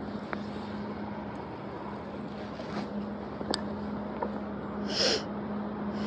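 Steady rush of river water with a constant low hum under it, a single sharp click about halfway through and a short hiss about five seconds in.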